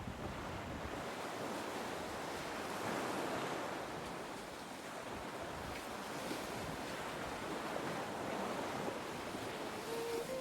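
Water rushing and splashing along the hulls of a sailing catamaran under way, with wind noise on the microphone, swelling and easing.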